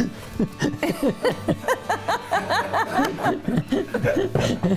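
Laughter: a long run of quick, even chuckles, about four or five a second.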